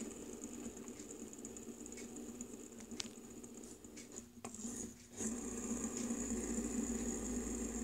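Green plastic three-armed fidget spinner whirring steadily as it spins on a wooden tabletop. About four seconds in a finger stops it, the whir drops away for about a second, then it is flicked again and whirs on louder.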